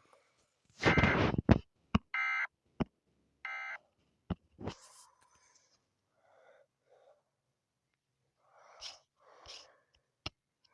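Emergency Alert System end-of-message code played over a TV: after a loud rough burst, two short buzzing digital data bursts about a second apart. A few sharp clicks follow, and then faint breathy sounds.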